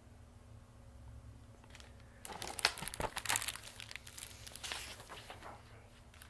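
Paper rustling and crinkling with sharp clicks, from a hardcover picture book being lowered and its pages handled. It starts about two seconds in and dies down over a few seconds.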